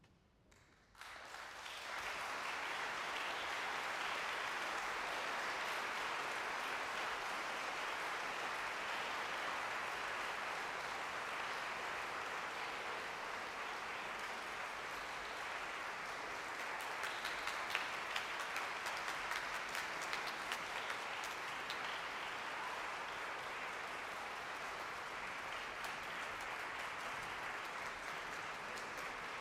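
Audience applause breaking out about a second in after silence and continuing steadily, with a few sharper individual claps standing out around the middle.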